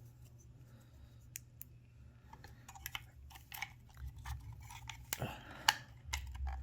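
Small plastic clicks, taps and scrapes as a 3D-printed PLA cupholder arm is worked by hand into a car cupholder housing. The clicks are sparse at first, then busier from about two seconds in, with one sharper click near the end.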